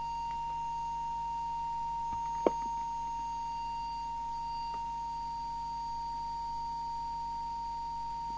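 Steady pure test tone, a single unwavering whistle, from an audio tone generator modulating a CB transmitter while its deviation is being set, with one sharp click about two and a half seconds in.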